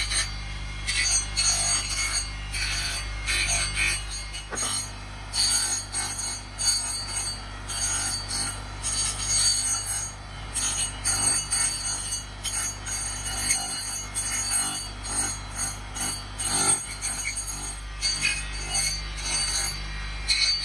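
Background music over the steady hum of an electric motor spinning an abrasive disc, with the rasp of wood being ground against the disc as a carving is shaped.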